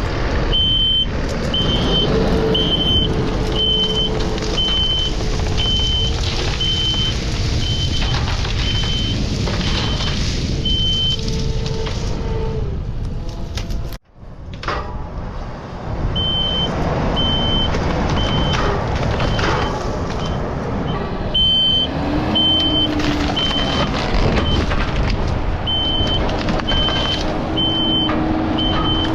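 Kubota skid steer's engine running under load while its reverse alarm beeps steadily, about once a second, as the machine backs up. The sound cuts out abruptly about halfway through, then the engine and beeping return.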